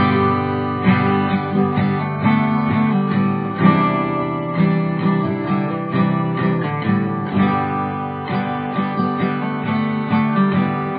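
Background music led by a strummed acoustic guitar in a steady rhythm.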